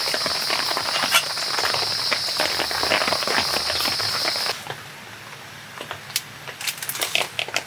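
Steady high-pitched chirring of crickets or other insects, with scattered light taps and clicks. The insect sound cuts off suddenly about halfway through, leaving quieter, sparse clicks and taps.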